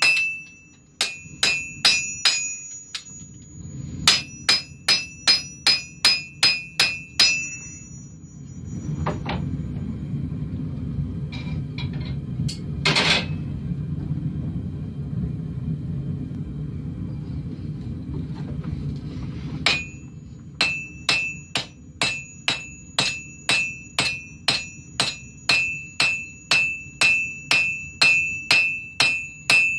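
Hand hammer striking red-hot khukuri blade steel on a Refflinghaus anvil in quick runs of blows, about two a second, each with a bright ringing tone from the anvil. In the middle the hammering stops for about ten seconds, leaving a steady low rumble with one sharp clatter, before the blows start again.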